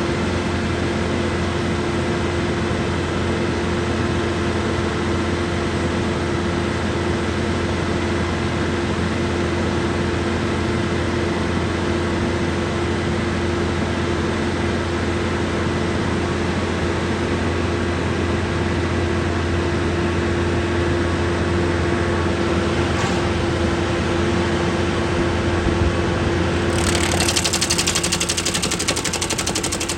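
Skid steer's diesel engine running steadily, driving a hydraulic stump grinder. About 27 seconds in, a loud rasping clatter starts as the grinder's teeth bite into the stump.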